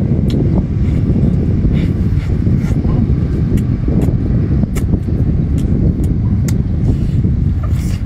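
Heavy, uneven wind rumble on the microphone. Over it come scattered sharp mouth clicks and smacks as cooked octopus tentacles are eaten.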